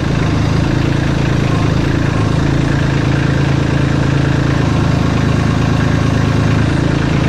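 Kubota LX2610 compact tractor's three-cylinder diesel engine running steadily, its note shifting slightly a couple of times.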